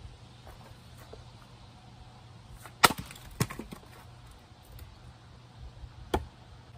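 A Fiskars splitting axe strikes a box elder piece standing on a chopping block and splits it with one sharp crack, followed about half a second later by a lighter knock. Another single wooden knock comes near the end.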